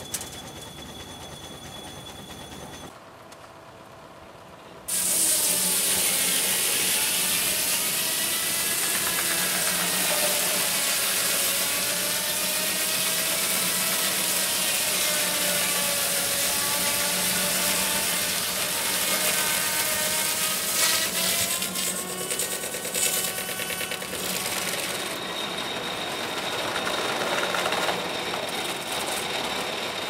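Steam-powered sawmill's large circular saw blade cutting through a log: a loud, steady sawing whine whose pitch wavers up and down as the load on the blade changes, over a steady low hum. It starts abruptly about five seconds in and eases off in the last few seconds.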